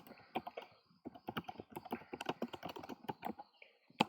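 Typing on a computer keyboard: a quick run of key clicks with a short pause about a second in, and one sharper click near the end.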